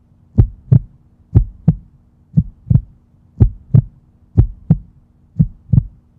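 Heartbeat sound effect: deep paired thumps, lub-dub, about once a second over a faint steady hum.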